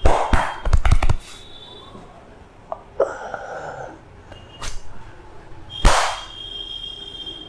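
A quick run of sharp smacks in the first second or so, then single smacks about three and five seconds in and a loudest one near six seconds, with a thin steady high whine behind the later part.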